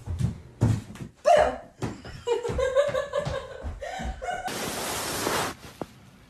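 A person laughing, with a few short thumps at the start. Near the end comes a loud hissing noise lasting about a second, which then cuts off.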